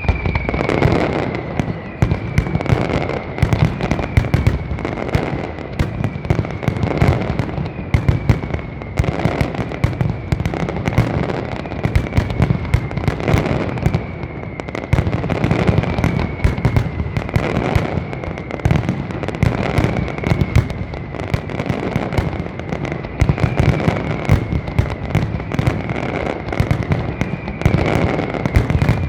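Large fireworks display: dense, continuous volleys of firework bangs and crackles with a deep rumble underneath. A short high whistle, falling slightly in pitch, repeats about every second and a half.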